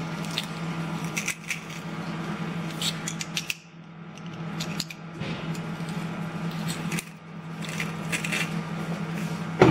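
Metal garlic press being squeezed and worked over the bowl, crushing garlic cloves, giving a series of irregular metallic clicks and clinks over a steady low hum.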